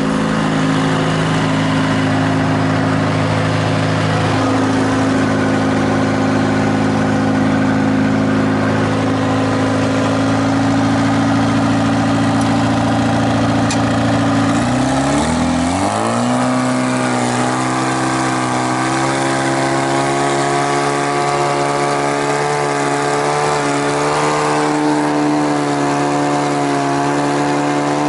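Heavy diesel engine idling steadily, then revving up about 15 seconds in and holding at a higher speed, wavering slightly as it runs.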